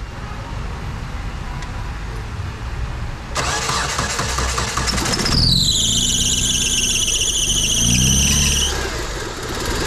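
A 2003 Mitsubishi Eclipse's four-cylinder engine cranked by the starter about three seconds in, catching with a loud high squeal that falls slightly in pitch, holds for about three seconds and cuts off, the engine then running on. The engine has a misfire (code P0300), with only two of its four cylinders said to be working.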